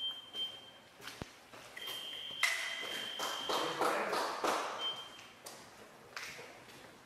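Electric fencing scoring machine sounding its steady high tone as touches register during the foil check: three beeps, the middle one about two seconds long, mixed with scattered taps and clicks.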